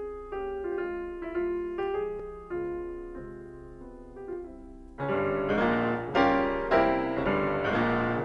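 Background piano music: gentle single notes, then fuller and louder chords from about five seconds in.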